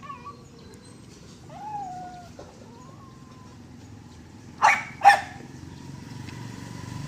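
A dog gives a short whine, then two sharp barks in quick succession about two-thirds of the way through.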